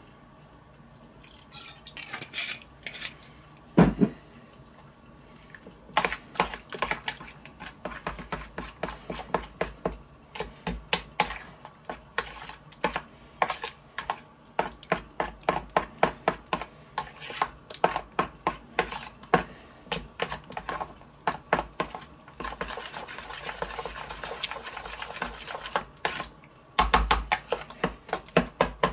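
Metal spoon stirring a thick yogurt dip in a plastic bowl: a steady run of quick clicks and scrapes against the bowl, starting about six seconds in. A single knock sounds about four seconds in.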